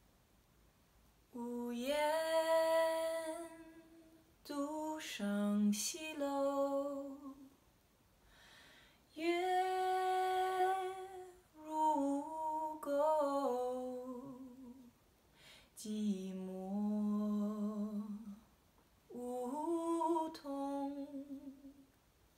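A woman singing unaccompanied in Mandarin, a slow ballad sung in about six held phrases with short breaths between them.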